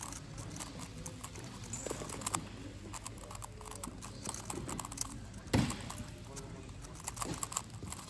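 Dayan V2 Magnetic megaminx being turned fast in a speedsolve: a quick, irregular run of plastic layer-turn clicks, with one louder knock a little past halfway.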